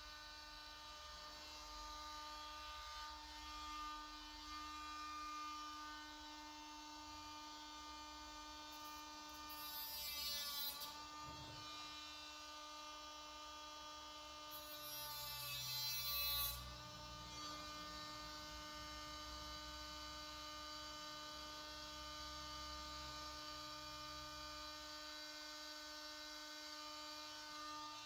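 Battery-powered hot-staple plastic repair gun giving a faint, steady electrical hum and whine. Twice, about ten and sixteen seconds in, the whine dips in pitch and recovers, with a short hiss.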